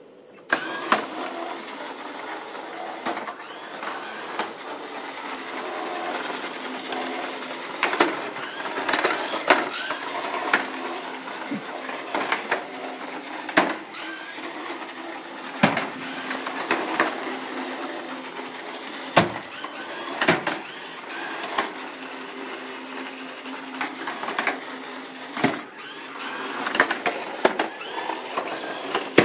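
Kobuki robot base's wheel drive motors whirring as it drives about on a tile floor, starting about half a second in. Sharp knocks come every one to three seconds.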